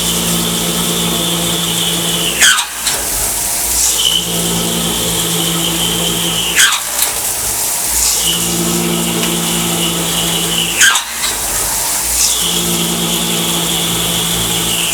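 SYIL X5 CNC milling machine running in a repeating cycle: a steady high whine with a lower hum for about three seconds, broken about every four seconds by a short, loud noise whose pitch falls quickly.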